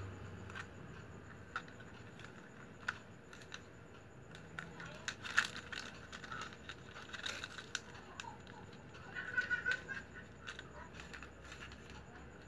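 Strips of used plastic packing strap being handled and woven by hand, giving scattered light clicks and scrapes of plastic on plastic and on the floor.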